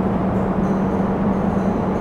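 Steady mechanical rumble with an even low hum and faint high whines coming and going: the drive of a large rotating test rig turning slowly.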